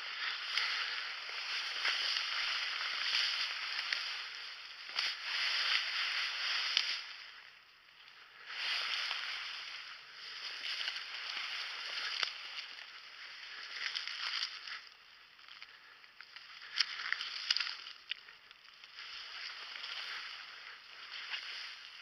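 Dense bracken ferns and brush swishing and rustling against a walker's legs as he pushes slowly through thick cover. The rustling comes in stretches of a few seconds with brief pauses between steps, and there are a few light snaps of stems.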